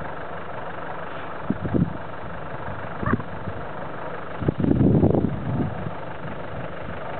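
Safari vehicle engine idling steadily, with a few low thumps and a louder bumping rumble about five seconds in.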